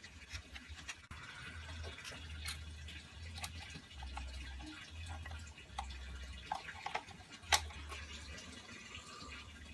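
Small clicks and ticks of a screwdriver and hands working on a DJI Phantom 3 drone's plastic shell, with one sharper click about seven and a half seconds in, over a low on-and-off rumble.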